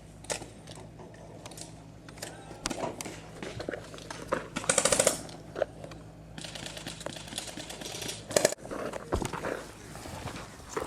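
Airsoft guns firing: scattered single pops and clicks, with a half-second burst of rapid automatic fire about five seconds in and a sharp loud crack a little after eight seconds.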